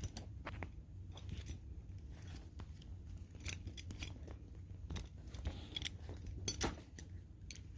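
A belt being handled and threaded through its loop: faint rustling of the strap with scattered small clicks, a few sharper ones in the second half.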